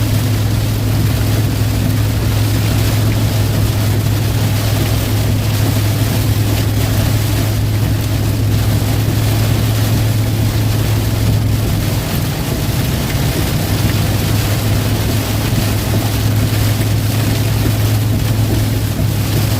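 Steady drone inside a vehicle's cab driving on the highway in heavy rain and wind: a constant low engine and road hum under a loud, even wash of rain and wind noise, the hum briefly wavering about twelve seconds in.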